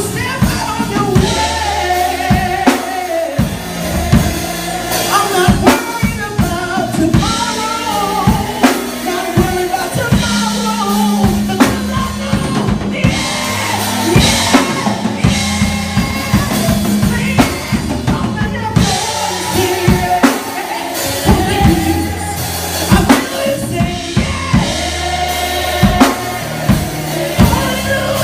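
Live church music: a congregational song with singing voices over a drum kit, a bass line and other instruments, with a steady beat.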